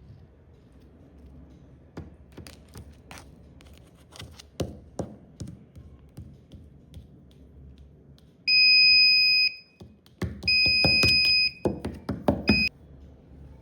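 Scattered clicks and knocks, then the Arduino alarm's buzzer sounding a steady high-pitched tone: about a second long, again for about a second after a short pause, and a brief blip near the end, each cut off sharply. The buzzer goes off when the alarm's IR sensor detects an object, with knocks around the later tones.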